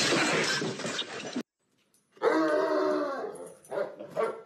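A bloodhound calling: a drawn-out, wavering call of about a second and a half, followed by two short ones near the end. Before it, about the first second and a half is a loud noisy burst that cuts off suddenly.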